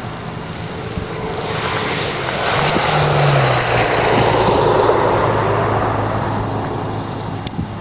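A motor vehicle passing by: a rushing sound swells, peaks about four to five seconds in, then fades, with a low engine hum that dips slightly in pitch as it goes past.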